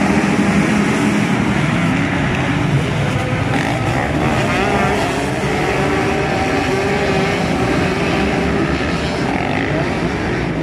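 A pack of motocross dirt bikes racing off the start together, many engines revving at once in a dense, wavering chorus of rising and falling engine notes that fades slightly as the pack moves away up the hill.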